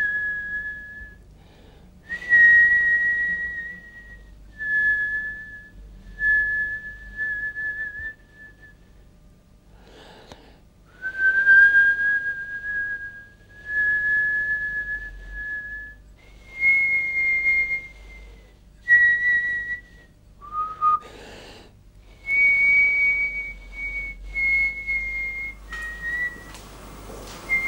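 Slow whistling: about a dozen held notes, each one to two seconds long on a steady pitch, with short gaps between them. The pitch shifts a little from note to note.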